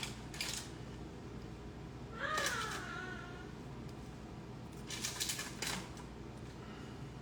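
A cat meows once, about two seconds in: a single call of about a second that rises and then falls in pitch. Light clicks and taps of kitchen utensils come near the start and again around five seconds in.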